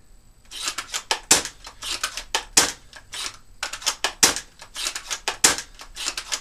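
VSR-10-type airsoft bolt-action sniper rifle with a Laylax M170 upgrade spring being cycled and fired in quick succession: clicking and rattling of the bolt being lifted, drawn back against the heavy spring and closed, with a sharp snap of the piston on each shot, four shots about every one and a half seconds.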